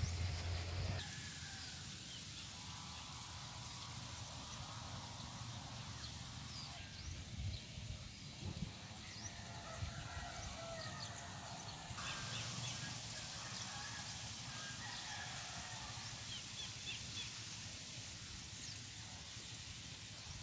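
Quiet farm-field ambience with scattered short bird chirps and some faint, distant calls that may be chickens. The background changes abruptly a few times, at shot changes.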